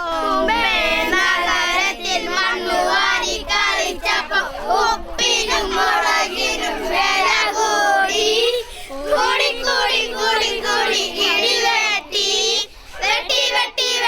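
Children singing a song in high voices, with short breaks between phrases.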